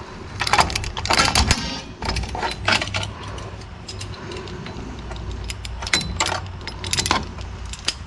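Small metal parts of a rear drum brake, its springs, shoes and linkage, clinking and rattling as they are worked into place by hand. The clinks come in bunches, in the first two seconds, near three seconds in and again around six to seven seconds, over a steady low hum.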